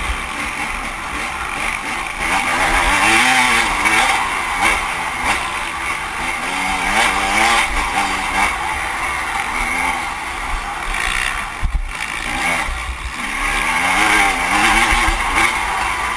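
Off-road motorcycle engine revving up and down over and over as the rider works the throttle through the course, the pitch climbing and dropping with each burst, with a brief throttle-off about twelve seconds in.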